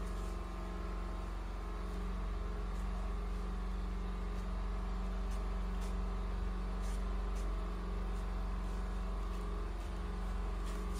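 A steady low mechanical drone, as from an engine or motor running without change, with a few faint clicks on top.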